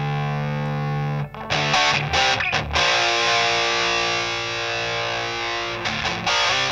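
Electric guitar played through a Rullywow Eaglet distortion pedal, a clone of the EarthQuaker Devices Talons. Distorted chords are left to ring, with a run of short choppy chords about a second in and a few more near the end.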